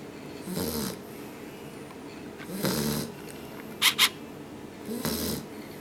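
A nine-week-old puppy snoring in its sleep, three snores about two seconds apart. A quick double click, the loudest sound, comes just past the middle.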